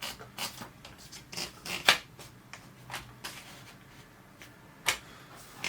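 Olympia Monica portable typewriter being loaded with paper: a sheet rustles as it is fed in, and the platen and paper mechanism click several times in the first two seconds. There is a sharp clack about two seconds in and another about five seconds in.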